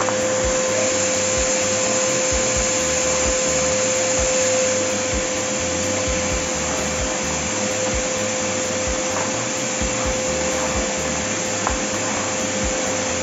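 Vacuum cleaner running steadily, a constant whine over its rushing air noise.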